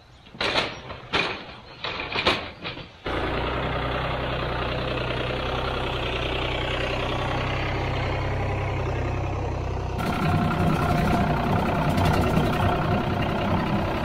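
A few short, sharp knocks, then an engine running steadily from about three seconds in. Around ten seconds in it turns louder and rougher.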